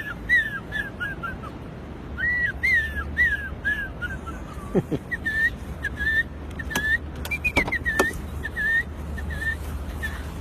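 A man imitating birdsong by whistling: runs of short chirps, the first runs falling in pitch, then evenly spaced chirps at one pitch about twice a second.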